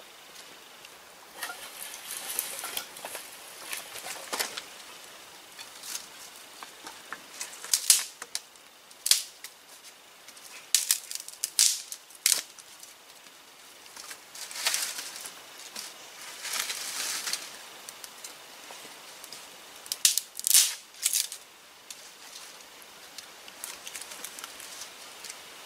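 Dry sticks and twigs being handled, snapped and pushed into the firebox of a clay kiln: short, sharp rustles and snaps that come every second or two, with quiet gaps between.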